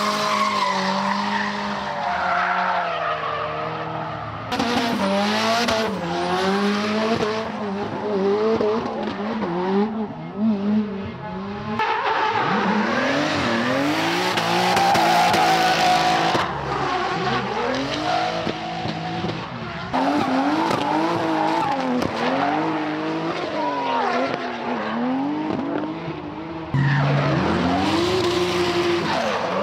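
Drift cars sliding sideways one after another: their engines rev up and down in quick wavering surges, with tyres squealing and hissing under them. The sound changes abruptly several times as it cuts from one car to the next.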